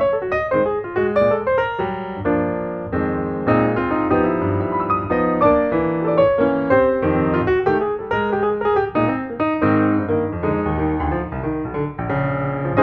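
Background piano music with a quick, busy run of notes.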